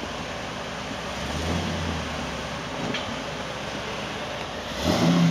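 A vehicle's engine running with a steady noisy drone, growing louder shortly before the end.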